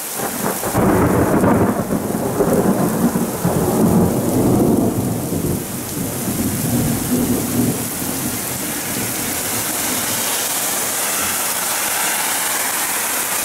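A long rumble of thunder from a lightning flash, starting about a second in and dying away over several seconds, over heavy rain pouring down steadily.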